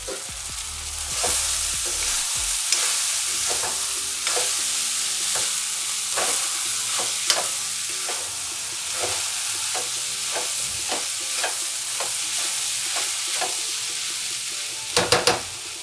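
Grated ginger sizzling as it fries in hot ghee in a kadhai, stirred with a steady hiss and a scrape of the stirring utensil against the pan about once a second, with a few louder scrapes near the end.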